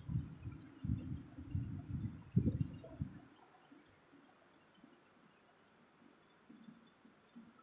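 A cricket chirping in a fast, even, pulsing trill, about six or seven pulses a second. For the first three seconds there are also low, muffled noises, and then they stop.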